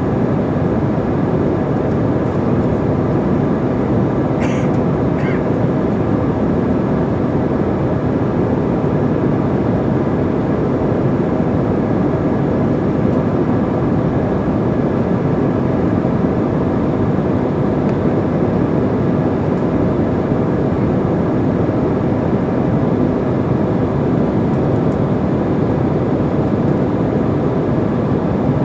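Steady cabin noise of a jet airliner in cruise, the even rush of engines and airflow heard from a window seat, with a faint low steady hum under it.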